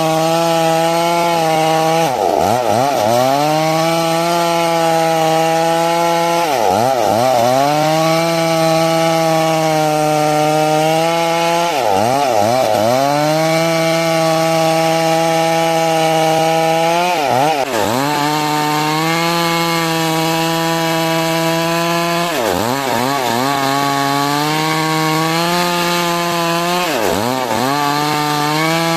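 Stihl MS 382 two-stroke chainsaw running at high revs while ripping a large trembesi log lengthwise. Its engine pitch dips sharply and climbs back about every five seconds, six times in all.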